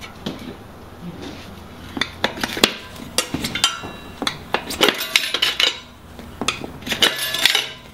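Steel tire spoons clinking and scraping against a dirt bike's spoked rear rim while prying the tire bead over the rim edge: irregular clinks and clicks, some ringing briefly.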